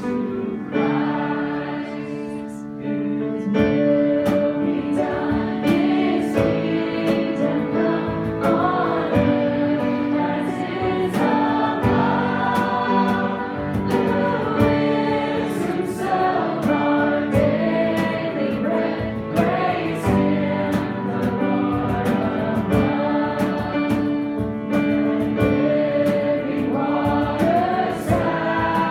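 Christian worship music: voices singing together over instruments, with a steady beat of cymbal-like hits.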